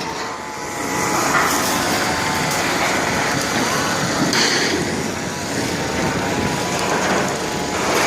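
Large bonfire burning: a steady rushing noise with occasional crackles and pops.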